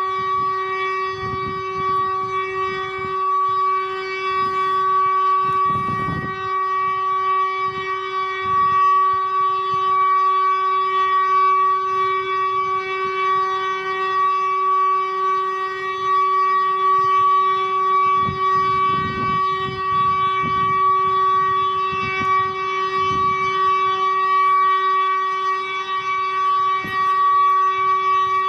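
Civil defence siren holding one steady, unwavering tone: the continuous test signal of a Czech siren test (zkouška sirén). Low rumbling noise comes and goes underneath, most strongly about six and nineteen seconds in.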